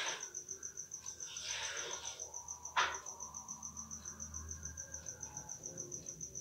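A cricket chirping steadily in a high, rapidly pulsing trill, with one sharp click about three seconds in.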